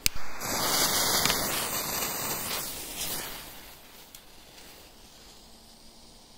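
A short click, then a lit firecracker fuse hissing for about three seconds before it fades out.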